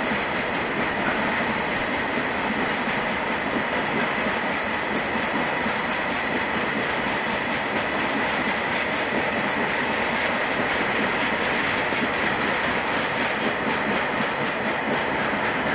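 Freight train of tank wagons rolling past, a steady sound of wheels running over the rails with a clickety-clack from the rail joints.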